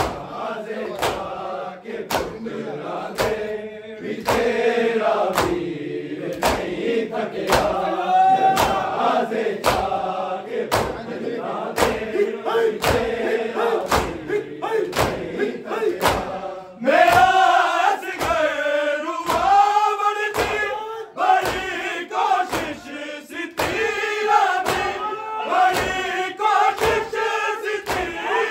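A crowd of men chanting a Punjabi nauha (Shia lament) together, over the steady, even slaps of open hands striking bare chests in matam, a little over one slap a second.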